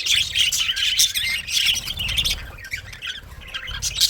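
Budgerigars chirping and warbling, short overlapping calls and squawks running on without a break, with a low rumble underneath.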